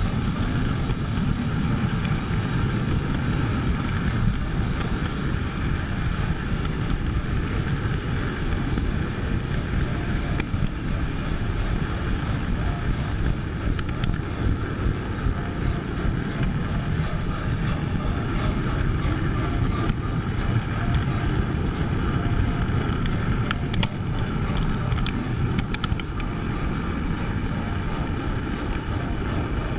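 O gauge model train rolling around the layout, a steady rumble of wheels on track and running gear heard from a camera riding aboard the train. A few sharp clicks come about three quarters of the way through.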